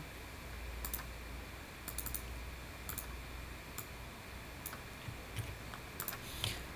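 Sparse clicks of a computer keyboard and mouse, roughly one a second, some in quick pairs.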